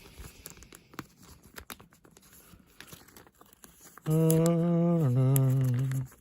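A person humming two held notes, the second lower than the first, for about two seconds near the end. Before that, faint clicks and light rustling of trading cards being handled.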